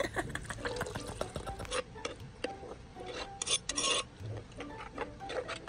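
A spoon stirring a thin chili-garlic dipping sauce in a bowl: irregular clinks and scrapes against the bowl, the loudest scraping about three and a half to four seconds in.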